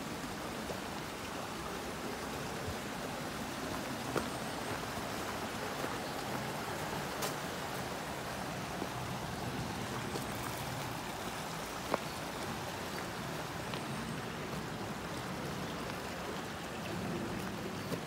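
Small mountain brook babbling: a steady rush of running water, with a few sharp clicks over it.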